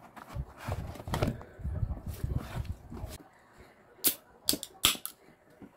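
A paper takeout box is handled and pulled open with low rustling and crinkling. About four seconds in, an aluminium soft-drink can is opened: a few sharp clicks and pops as the tab cracks the seal.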